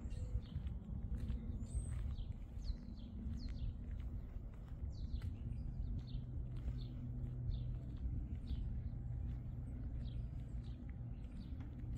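Small birds calling outdoors: a run of short, high, falling chirps, about two a second, over a steady low rumble.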